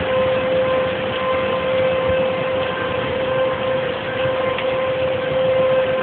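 Outdoor tornado warning siren, an American Signal Tempest T-128 rotating mechanical siren, sounding a steady wail that holds one pitch.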